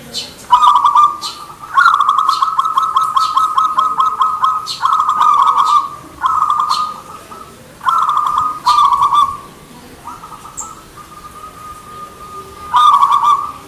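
Zebra dove (perkutut) singing: repeated phrases of fast, rattling coo notes held at one pitch. A long run of about three seconds comes near the start, then several shorter phrases, a quieter stretch, and a loud phrase again near the end.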